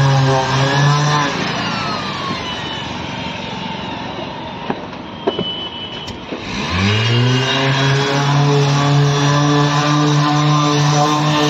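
Corded electric orbital sander sanding a car's door panel during body prep before painting. About a second in it is switched off and winds down. After a quieter few seconds with a couple of light knocks, it starts again about six and a half seconds in, spins up, and runs steadily.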